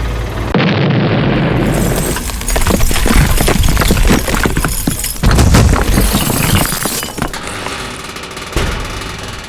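Loud crashing and clattering: many sharp impacts in quick succession over a steady low rumble, busiest in the middle few seconds.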